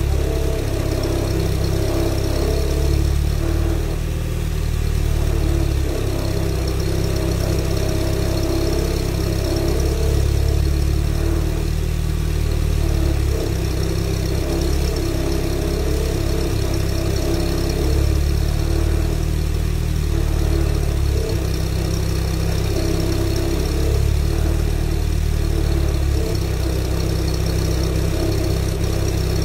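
VW 1.6-litre BSF four-cylinder petrol engine idling steadily shortly after a cold start, heard at the tailpipe through a decat exhaust with the catalytic converter removed. The engine is freshly overhauled.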